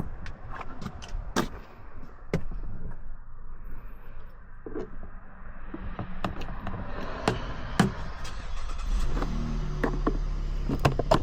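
Plastic interior trim clips of a center console snapping and popping as the pieces are pried and worked loose: a string of sharp clicks and snaps with some scraping. A low steady hum comes in about nine seconds in.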